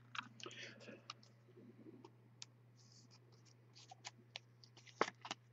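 Trading card being slid into a plastic sleeve and top loader: faint rustling and small clicks of plastic and card being handled, with a few sharper clicks about five seconds in.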